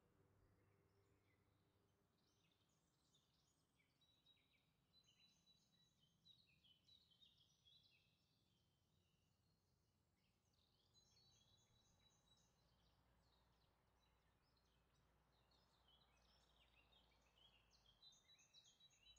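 Near silence: faint room tone with faint, short, high chirps off and on.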